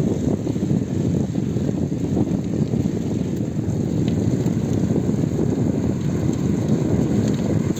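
Wind buffeting the microphone of a camera on a moving bicycle: a steady, low rushing noise with no break.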